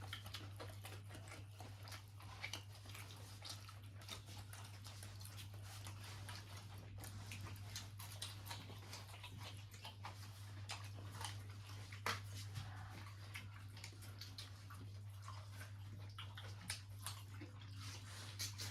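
Quiet eating sounds: soft chewing and mouth smacks with many small scattered clicks as fish is eaten by hand, over a steady low hum.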